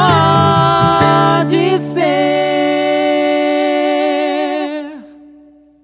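Acoustic guitar and voice ending a song: a long sung note held over the guitar, fading out about five seconds in.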